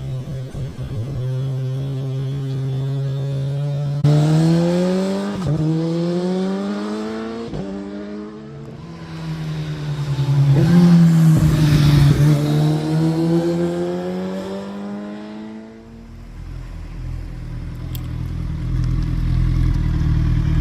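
Kawasaki Z900 inline-four motorcycle running steadily, then accelerating hard about four seconds in, its pitch climbing and dropping back twice at upshifts. It is loudest as it passes about eleven seconds in. It then settles into a low steady rumble near the end.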